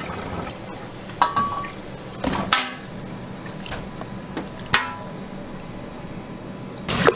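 Steel ladle and mesh strainer clinking against a steel pot and container, four sharp knocks, one with a short metallic ring, while braising liquid trickles and drips through the strainer. A louder steady rushing noise starts just before the end.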